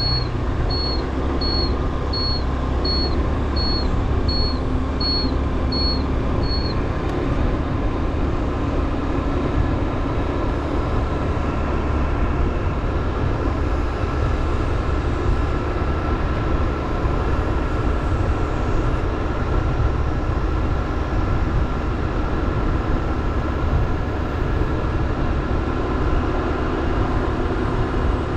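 Motorbike riding along a road: steady engine hum with road and wind noise. A high electronic beep repeats about twice a second and stops about six seconds in.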